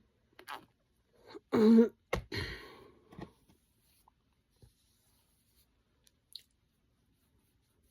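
A person coughs once, sharply, followed by a knock and a short rustle, then a few faint clicks.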